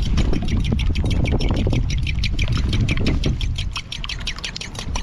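A fork beating an egg in a bowl: quick, even clicks of the tines against the bowl, about eight a second, over a steady low rumble.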